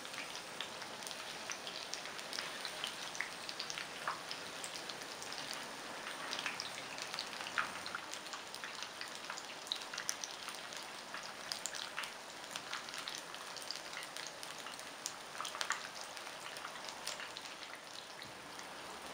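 Batter-coated bottle gourd pieces deep-frying in hot oil: a steady sizzle scattered with many small crackles and pops.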